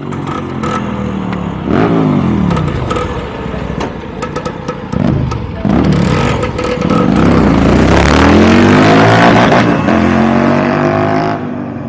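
Royal Enfield Continental GT 650's parallel-twin engine through a Red Rooster Performance Stellar aftermarket exhaust, revved up and down several times. It is then held at high revs for several seconds with a harsh rushing noise over the note, and drops back to idle near the end.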